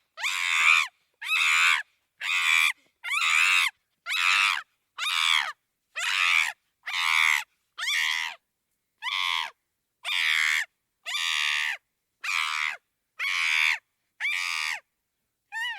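Chimpanzee screaming: a long run of loud, shrill screams, each about half a second, repeating roughly every two-thirds of a second, with a last short scream near the end.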